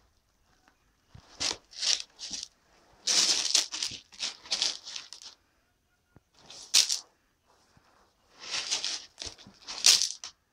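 Fresh granular cat litter rustling and crunching in a plastic litter box as a cat rolls and rubs about in it. It comes in about four bursts with short pauses between.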